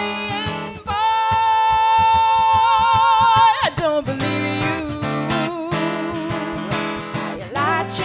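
Live acoustic song: an acoustic guitar strummed steadily under a woman's singing. She holds one long high note with vibrato, which slides down about three and a half seconds in, and the singing carries on over the guitar.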